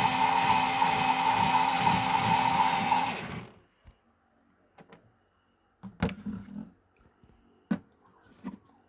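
Casdon 476 Washmatic toy washing machine's small electric motor running with a steady whine and churning drum, then winding down and stopping about three seconds in. A few light clicks and knocks follow.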